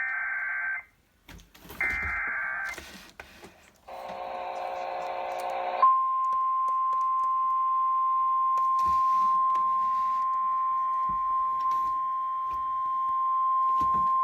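Emergency Alert System SAME header: two short, rasping digital data bursts of under a second each. About four seconds in comes a dense, buzzy burst of almost two seconds, then the single steady 1050 Hz NWS warning alarm tone starts and holds.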